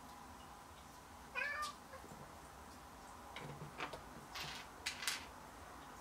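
Domestic cat meowing once, a short call about a second in. A few light clicks and rustles of LEGO bricks being handled follow in the second half.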